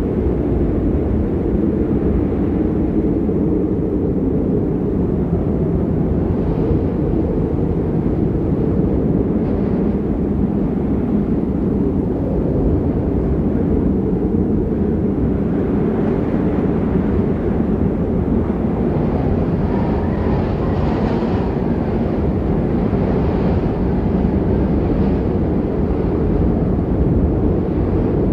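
Snowstorm wind blowing hard: a steady, loud low rumble, with gusts in the second half that add a higher hiss.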